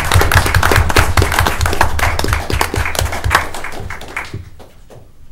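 Applause from a small group: dense hand clapping that thins out and fades away about four seconds in.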